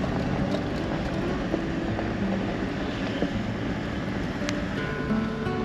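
2020 Toyota LandCruiser 76's turbo-diesel V8 running steadily under load while climbing a steep rocky track, heard from inside the cab with tyre and road rumble. Soft music notes come in near the end.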